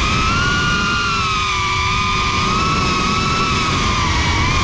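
GEPRC Cinelog 35 FPV drone's brushless motors and ducted propellers whining steadily, the pitch drifting slightly up and down with the throttle, over a low rumble of prop wash and wind.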